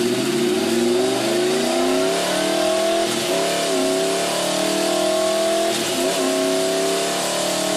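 Honda VFR750F Interceptor's liquid-cooled, gear-driven-cam V4, breathing through an aftermarket slip-on muffler, revving up under load on a chassis dyno. The pitch climbs steadily throughout, with two brief dips about three and six seconds in.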